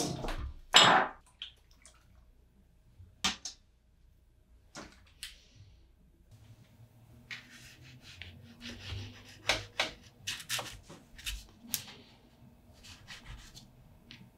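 A few separate knocks and clicks as art supplies are picked up and set down, then a Caran d'Ache Neocolor II wax pastel scratching in quick short strokes across watercolour paper.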